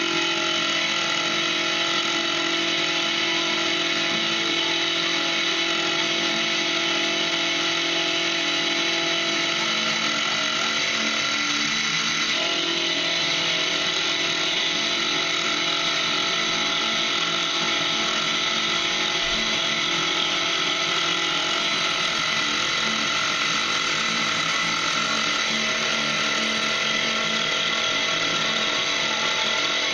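Milling machine running steadily with its cutter milling metal knife bolsters, a continuous motor and spindle whine with a high cutting tone.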